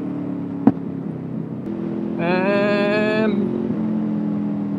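Honda VFR800 V4 engine on overrun with the throttle shut at about 40 mph, with one sharp pop from the new aftermarket exhaust about a second in. In the middle a higher tone, rising a little in pitch, comes in for about a second and stops. The rider feels the bike needs a tune to go with its new exhaust.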